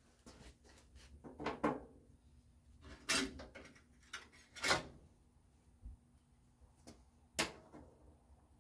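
A handful of separate knocks and clatters of hand tools being handled and set down on sheet metal, the loudest about three and four and a half seconds in.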